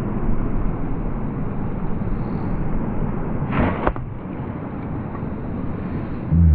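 Steady low rumble of wind and churning water, with a brief splash and a sharp click about three and a half seconds in as a bowfishing arrow strikes the water.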